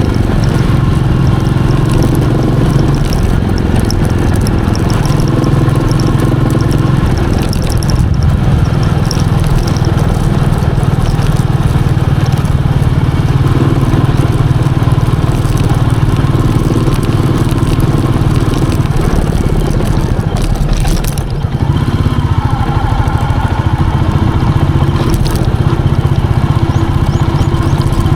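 Royal Enfield Meteor 350's single-cylinder engine running steadily while riding. The loudness dips briefly about twenty seconds in.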